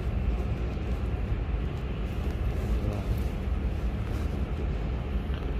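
Steady low rumble of a factory hall's machinery and ventilation, with faint scattered clicks and rustles.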